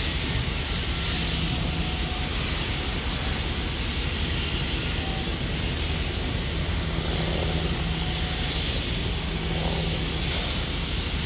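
Chesapeake & Ohio 2-6-6-2 Mallet steam locomotive 1309 moving slowly, a steady hiss over a low rumble, with a faint low hum that comes and goes.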